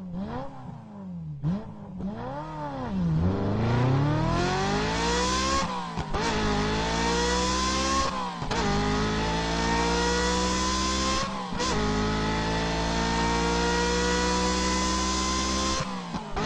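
A small motorcycle-type engine revving up and down a few times, then accelerating through the gears: its pitch climbs steadily, drops at each shift about 6, 8½, 11½ and 16 seconds in, and climbs again.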